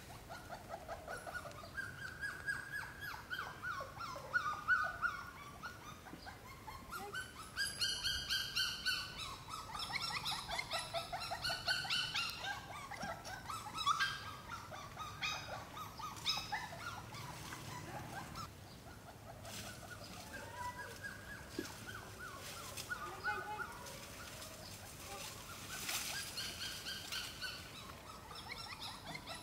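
Puppies whimpering and whining: repeated high, wavering cries.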